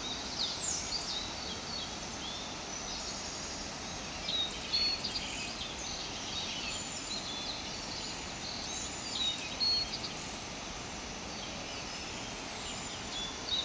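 Several birds chirping and calling in short, quick sweeping notes over a steady rushing hiss.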